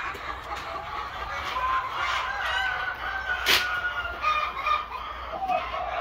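A flock of laying hens clucking and calling over one another, with one longer drawn-out call in the middle. A sharp click or knock sounds about three and a half seconds in.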